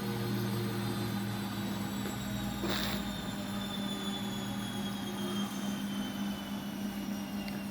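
Washing machine motor running with a steady hum and a high whine that slowly falls in pitch as the drum slows. A brief rushing sound about three seconds in.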